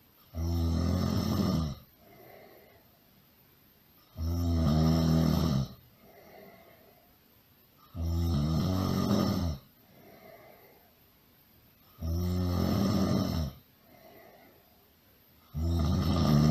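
A person snoring loudly: five long snores, one about every four seconds, with a soft breath out between each.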